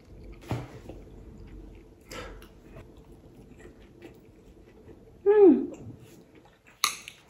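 A person chewing soy garlic boneless chicken, with a few soft crunches. About five seconds in comes a falling "mmm" hum, and near the end a short sharp hiss.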